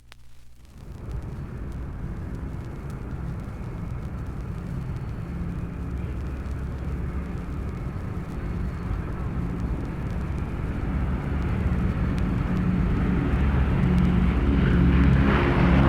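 A steady engine drone that starts about a second in and grows steadily louder, like an approaching vehicle or aircraft.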